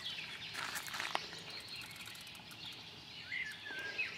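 Birds chirping, with a few short ticks about a second in.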